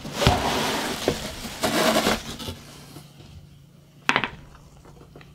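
Packing material rustling and crinkling for about two and a half seconds as the contents are lifted out of a shipping box, then quieter handling with one sharp knock about four seconds in.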